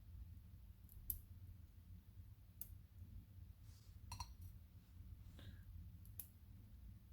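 A few sharp, faint metallic clicks at irregular intervals, one with a brief ringing clink about four seconds in: small tools and lock parts knocking together as the key pins are worked out of a disassembled Mako 427 padlock.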